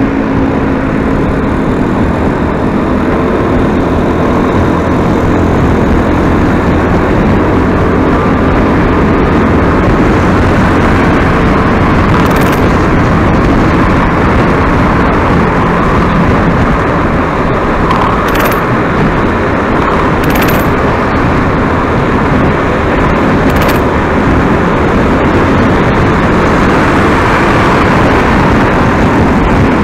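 Steady engine and road noise of a moving road vehicle, with four short sharp clicks in the second half.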